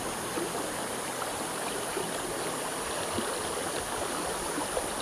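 Shallow creek running over rocks: a steady rush of moving water.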